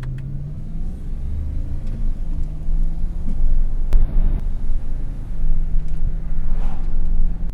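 Car engine pulling away and accelerating, its low tone climbing and stepping back a few times as the gears change, over heavy road rumble.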